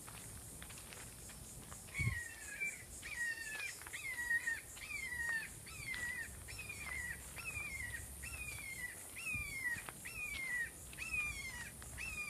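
Red-shouldered hawk calling: a long series of repeated down-slurred kee-ah notes, about two a second, starting about two seconds in.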